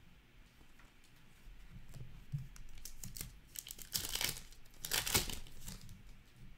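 A foil trading card pack wrapper being torn open and crinkled by hand, with two loud crackling rips about four and five seconds in after some softer handling.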